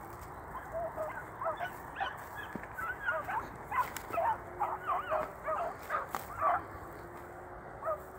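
Several hunting hounds, Basset Fauves de Bretagne and beagles, giving tongue: many short, high yelping bays, overlapping thickly in the middle and thinning to a single call near the end. It is the cry of a pack running on a rabbit.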